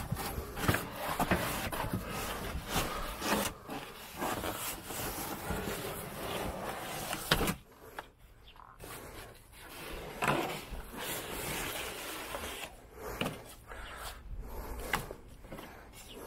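A car's fibreboard headliner panel being pulled out through the rear hatch opening, scraping and rubbing against the trim and seals with repeated knocks and clicks. The sharpest knock comes about halfway through, followed by a short lull.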